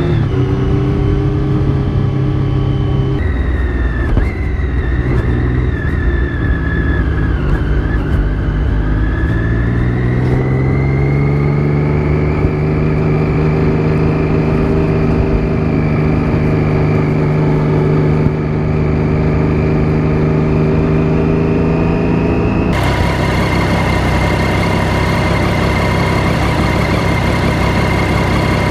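Triumph Daytona 675 inline-three engine under way. Its note falls off, then rises as the bike picks up speed and settles into a steady cruise. Near the end the sound changes abruptly to a brighter, steadier engine note.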